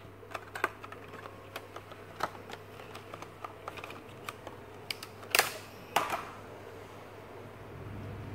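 Clicks and crackles of a clear plastic blister pack being handled and opened to take out a braided fishing line spool case, with two louder crackles about five and six seconds in.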